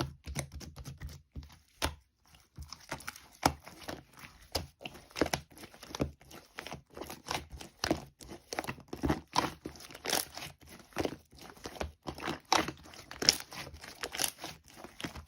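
Irregular crinkling and crackling made of many small sharp clicks, as of something being crumpled or torn by hand.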